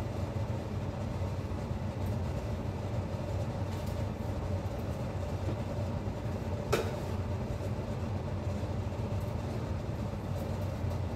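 Kitchen range hood fan running with a steady hum. About two-thirds of the way through, a utensil knocks once against the pan.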